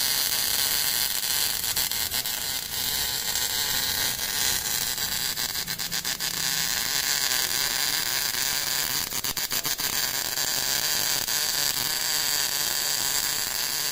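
MIG welding arc of an automatic circular welding machine, running by itself: a steady crackling hiss with clusters of sharp pops here and there.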